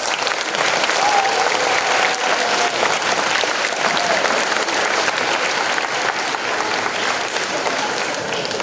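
Large audience applauding steadily after a speech.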